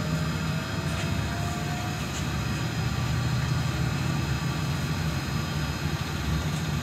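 Interior running noise of a Solaris Trolino 12 trolleybus on the move: a steady low rumble, with a faint rising electric whine in the first two seconds.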